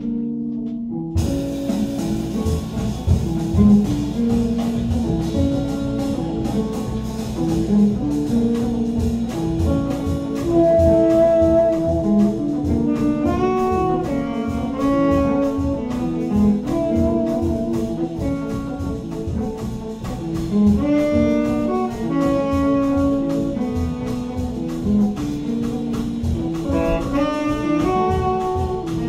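Live jazz quintet playing: saxophone carrying the melody over piano, electric guitar, double bass and drum kit. The drums and cymbals come in about a second in.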